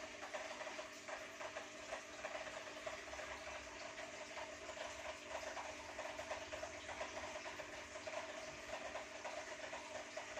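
A steady mechanical hum, a constant drone with several held tones, with faint irregular ticks over it.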